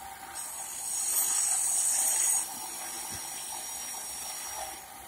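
A steady high-pitched hiss that starts about half a second in, is loudest for about two seconds, then drops to a fainter hiss that stops shortly before the end.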